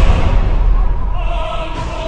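Epic trailer music: a heavy low boom hits at the start and fades over about a second and a half under sustained music.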